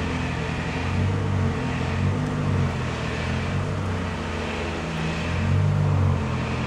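A low, steady motor hum that swells and fades every couple of seconds.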